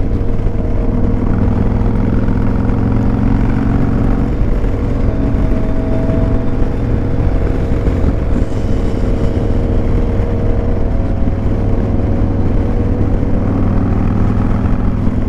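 Cruiser motorcycle engine running steadily at road speed, heard from the rider's seat, with its note shifting slightly a couple of times.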